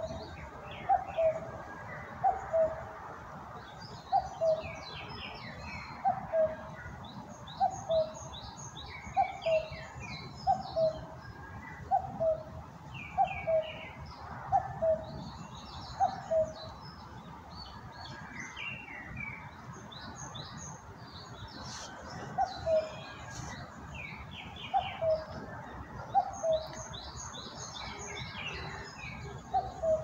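Birdsong: small birds chirp and twitter high up, over a low call repeated a little more than once a second. The low call pauses for a few seconds midway.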